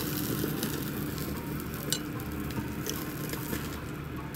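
A5 wagyu beef slices sizzling on a wire-mesh yakiniku grill, with scattered crackling pops and a sharp tick about two seconds in. The sizzle thins toward the end as the meat is lifted off the grill with tongs.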